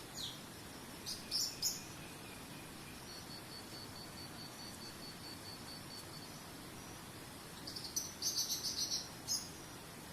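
Small birds chirping in short high bursts, with a quick falling whistle at the start, two clusters of chirps, and an even high trill of about five notes a second in the middle, over a steady low rush of flowing water.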